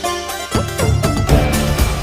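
Background music with bass and a steady beat.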